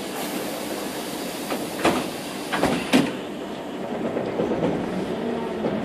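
Cabin noise of a Jelcz PR110 CNG city bus on the move: a steady rumble with the body rattling. A few sharp knocks come about two and three seconds in, the last one the loudest.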